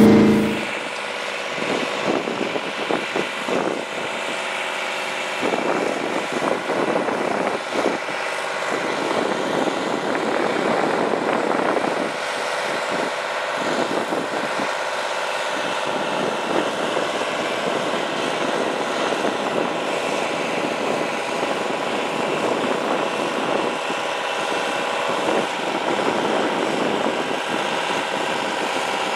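Detroit Diesel 12V92 two-stroke V12 diesel of a Rite 750 Earthquake four-wheel-drive tractor working under load, pulling a 20-bottom moldboard plow: a steady engine drone with a high whine over it.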